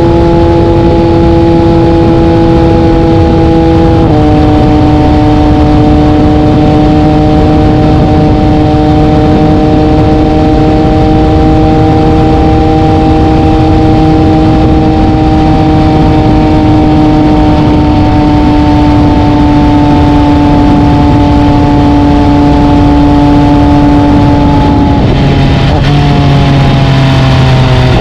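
MV Agusta Brutale 800 RC's three-cylinder engine running through an SC Project titanium exhaust while riding at highway speed, with wind and road noise underneath. The engine note drops sharply with an upshift about four seconds in, holds nearly steady while cruising, then sinks lower near the end.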